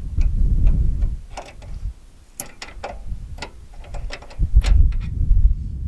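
Scattered sharp clicks and taps at uneven intervals, with low rumbling gusts of wind on the microphone in the first second and again about four and a half seconds in.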